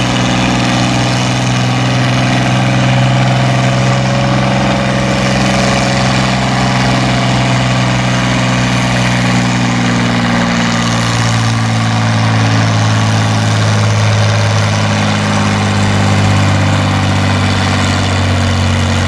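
Oliver 1800 tractor's six-cylinder engine running hard as it pulls a weight-transfer sled, with a steady drone whose pitch drops a little about ten seconds in as the engine is pulled down under the load.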